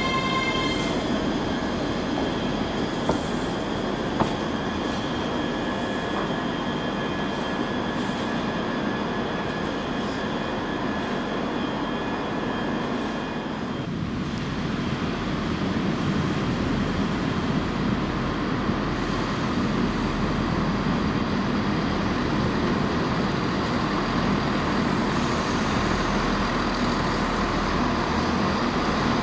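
Railway noise on a station platform: a ScotRail Class 385 electric multiple unit running, with high-pitched squealing tones for about the first second. After a break about halfway through, a steady low train rumble takes over, with a ScotRail Class 170 Turbostar diesel unit at the platform by the end.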